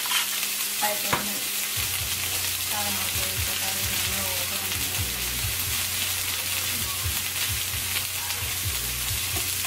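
Broccoli sizzling in a hot skillet with avocado oil and a splash of vegetable broth, a steady frying hiss, while a spatula stirs it around the pan.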